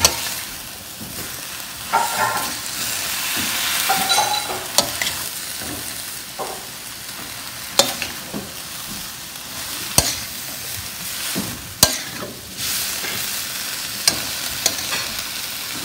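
Chayote tops and sliced beef sizzling in a stainless steel wok while a metal spatula stirs and tosses them. Sharp clacks of the spatula striking the pan come every couple of seconds over a steady frying hiss.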